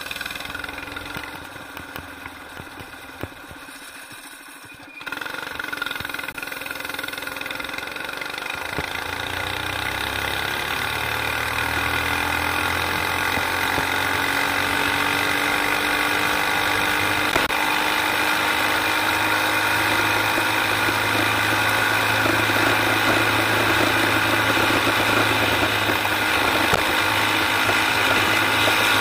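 Modified Predator 212cc single-cylinder go-kart engine (governor removed, Mikuni carburettor) pulling hard on a top-speed run. It is quieter for the first few seconds, then gets louder about five seconds in, and its pitch climbs slowly as the kart gains speed to about 50 mph before holding steady near top speed.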